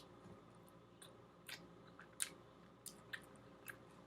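Faint chewing, with a handful of short, sharp mouth clicks spread through it.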